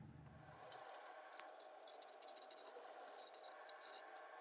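Faint scratching of a drawing compass marking a circle on a wooden speaker box top, in two short spells about halfway through and near the end, over near silence.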